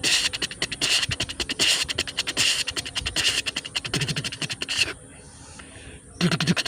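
A man's mouth-made sound imitation, beatbox-style: a fast run of clicks and hissing bursts. It stops about five seconds in and starts again a second later with a short low hum.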